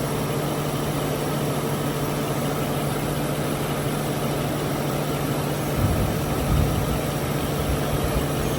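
Mercury Grand Marquis V8 idling steadily with the air conditioning on max while a can of refrigerant empties into the low-side port. A brief low rumble swells up about six seconds in.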